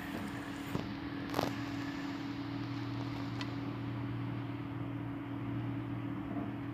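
A steady low mechanical hum with a few light clicks and knocks from the phone being handled and moved.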